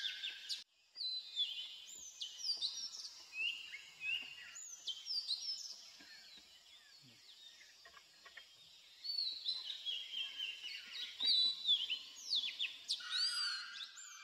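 Several wild birds calling together in a busy chorus of short whistled notes, most of them falling in pitch and overlapping. The sound cuts out for a moment about half a second in and thins out for a few seconds in the middle.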